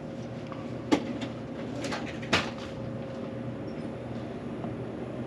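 Two sharp knocks about a second and a half apart, with a few faint clicks between them, over a steady low hum of room machinery.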